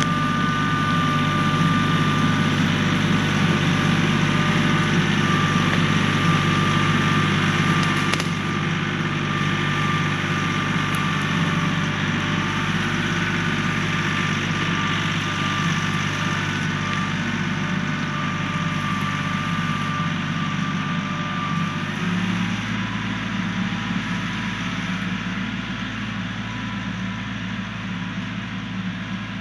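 Kioti 4010H compact tractor's diesel engine running under load as it drags a log, with a steady high whine over the engine note. The sound fades as the tractor moves away, and the engine note shifts about 22 seconds in.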